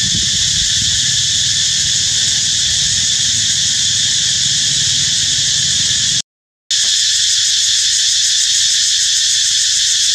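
A loud, steady, high-pitched chorus of cicadas droning without pause, cutting out for a moment about six seconds in.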